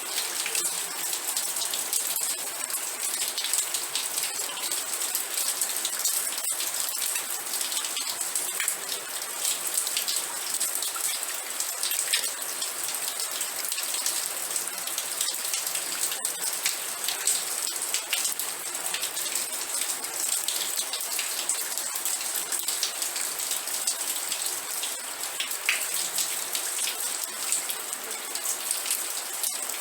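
Steady rain falling, with many individual drops striking close by as quick ticks over an even hiss.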